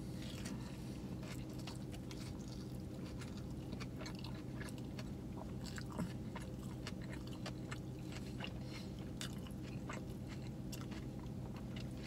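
A man chewing a mouthful of a soft four-patty cheeseburger: faint, irregular wet clicks and smacks of chewing, one slightly louder about six seconds in, over a steady low hum.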